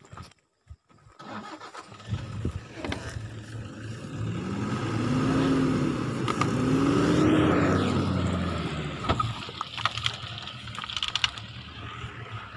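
Pickup truck engine starting and running. Its revs rise and fall twice about halfway through as the truck is hauled out of the mud. A few sharp knocks come near the end.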